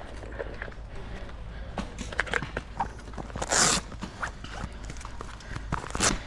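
Irregular footsteps and small knocks, with a short burst of hiss about three and a half seconds in and another near the end.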